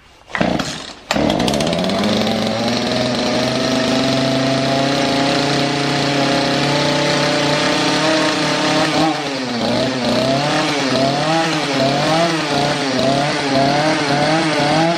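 Small two-stroke chainsaw engine of about 40 cc, started in the first second and then running steadily at a fast idle. From about nine seconds in its speed rises and falls rhythmically, roughly once a second.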